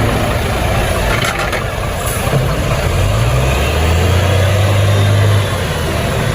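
Truck engine running, its note rising about three seconds in as it revs, holding, then easing off near the end.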